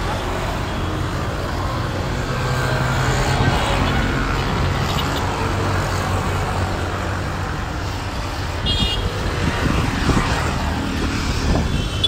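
A motor vehicle's engine humming steadily amid outdoor traffic noise, with a few short knocks about ten seconds in.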